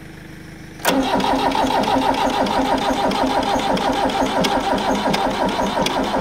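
Arnoux tractor's diesel engine, preheated on its glow plugs, starting suddenly about a second in and then running steadily with an even beat.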